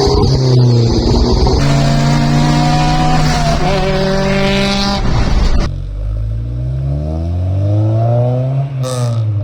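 Car engine revving and accelerating, heard in several short clips that cut abruptly from one to the next; in the last one the engine note climbs steadily as the car pulls.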